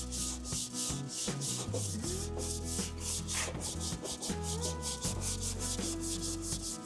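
Abrasive paper on a hand sanding block being rubbed back and forth over body filler on a steel body panel, in quick even strokes of about four to five a second. This is blocking back a guide coat to show the low and high spots in the filler.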